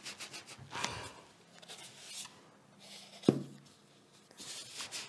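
An upturned plastic bowl's rim pressed and twisted through rolled dough on a floured wooden board, making short scraping rubs, with a single sharp knock about three seconds in.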